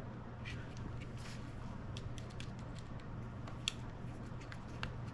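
Small scattered clicks and scrapes of a flathead screwdriver turning a screw to clamp a kill switch onto a mini bike handlebar, with one sharper click about two-thirds of the way through, over a steady low hum.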